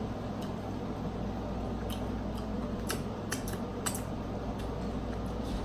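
Close-miked eating sounds of a seafood boil: a scattering of sharp clicks and crackles, bunched in the middle, over a steady low hum.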